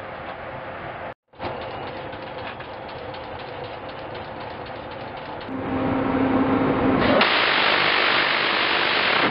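Mechanical noise with rattling and clicks, cut by a brief dropout about a second in. About five seconds in, a steady hum joins. About seven seconds in, a loud, even rushing noise takes over and the hum stops.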